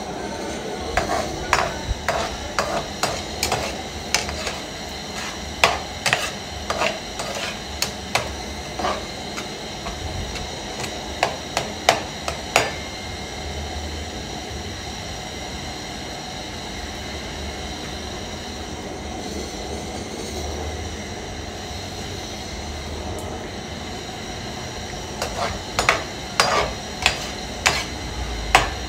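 A perforated metal skimmer stirring food in a metal frying pan, knocking and scraping against the pan in irregular clusters during the first half and again near the end, over a steady frying hiss.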